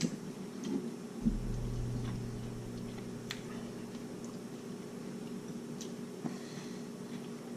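Quiet room with a steady low hum, a short louder low drone a little over a second in, and a few scattered faint clicks.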